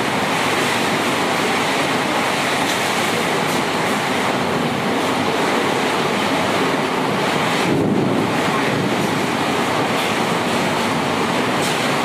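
Heavy rain pouring down in strong wind: a steady, dense hiss.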